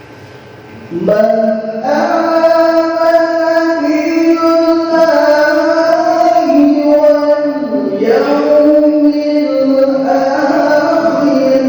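A male qari reciting the Qur'an in the melodic tilawah style, holding long ornamented notes that bend and turn in pitch. He pauses for breath briefly at the start, and the phrase resumes about a second in.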